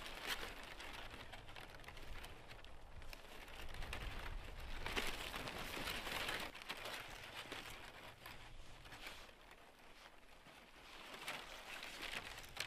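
Irregular rustling and crinkling of gear being handled, with scattered small ticks and crunches, over a low rumble that drops away about seven seconds in.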